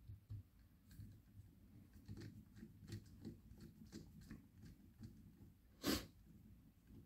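Faint clicks of a screw being fitted and turned into the metal body of an ABUS Bordo 6500 folding bike lock during reassembly, with one louder sharp knock about six seconds in.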